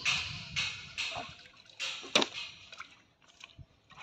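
Water splashing and sloshing in a large metal pot as live fish are grabbed out by hand and flap, in several short bursts, with a sharp slap about two seconds in.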